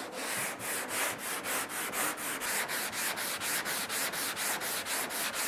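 Sandpaper on a hand sanding block being pushed and pulled over cured body filler on a car trunk lid, a steady quick rhythm of about four strokes a second. The strokes block-sand the filler flat and feather its high spots.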